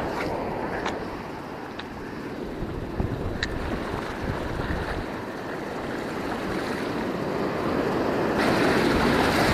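Ocean surf breaking and washing up a sand beach, growing louder about eight seconds in, with wind on the microphone and a few light ticks early on.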